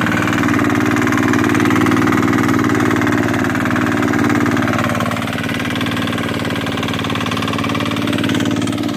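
Fishing boat's engine running steadily while under way, with wind and the rustle of cloth rubbing on the microphone over it.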